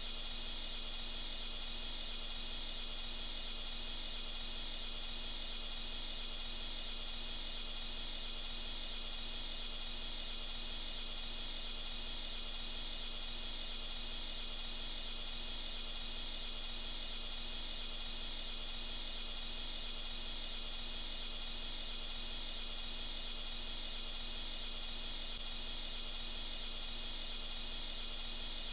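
TIG welding arc at about 60 amps on thin-wall 304 stainless steel tube, a steady, even hiss with a faint underlying hum.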